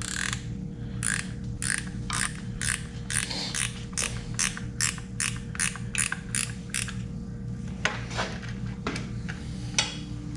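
Ratchet wrench clicking in a steady rhythm, about three clicks a second, as bolts on a G54B engine are snugged up; the clicking stops about seven seconds in, followed by a few separate clicks.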